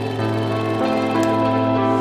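Background music of held, overlapping notes that change about a second in, over a steady low hum.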